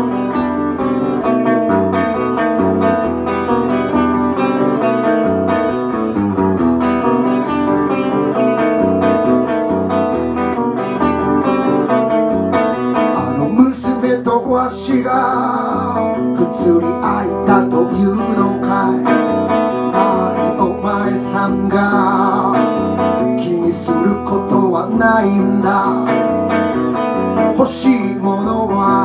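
An electric guitar played alone, then a man's singing voice comes in over it about halfway through while the guitar keeps playing.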